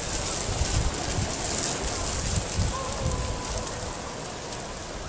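Outdoor background noise: a steady high-pitched crackling hiss, with wind gusting on the microphone in irregular low rumbles.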